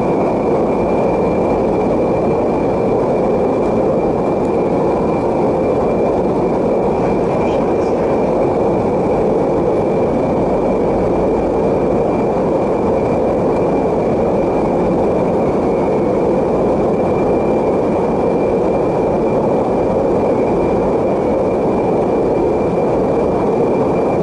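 Steady drone inside the cabin of a USAF aircraft in flight, engine and airflow noise with a thin steady whine above it.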